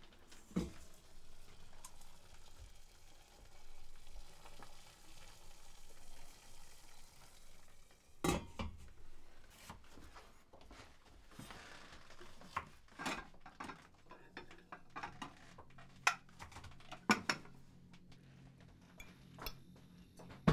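Kitchen clatter: pots, pans and cutlery clinking and scraping during cooking, with scattered knocks, the loudest about eight seconds in.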